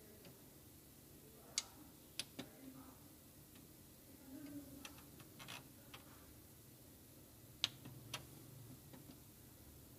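Plastic buttons on a printer's control panel clicking as they are pressed: several separate sharp clicks, with the loudest about one and a half seconds in and again about seven and a half seconds in.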